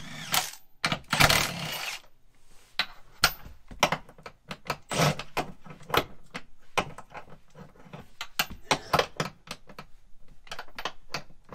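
A ratchet working a seat-mounting bolt: rapid, irregular clicking and small metal knocks, with a louder rasping stretch lasting about a second starting about a second in.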